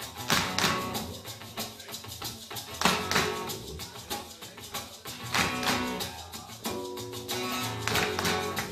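A small acoustic band playing an upbeat instrumental intro with acoustic guitar, bass guitar, stage piano, cello and a hand shaker. A fast, steady rhythm is marked by sharp percussive accents.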